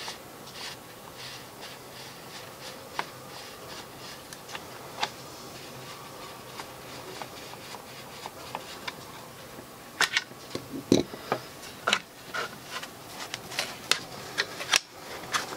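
Screwdriver turning the screws out of the butt pad of a polymer Magpul Hunter rifle stock, with faint, fairly regular rubbing ticks. About ten seconds in come several louder plastic clicks and knocks as the butt pad is worked off the stock.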